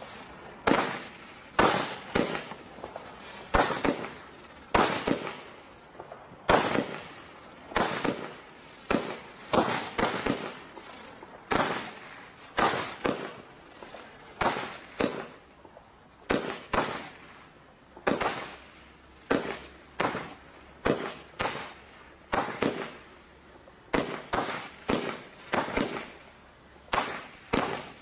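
Bright Star 'Stinger' 25-shot barrage cake firing shot after shot, a sharp bang roughly every second, some coming close together in pairs.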